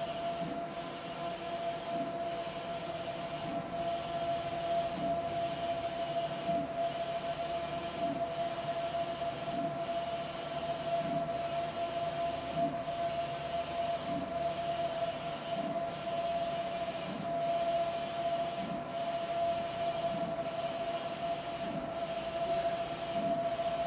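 Audley large-format inkjet printer (DX5 head) printing: the print-head carriage runs back and forth with a steady whine, reversing about every second and a half.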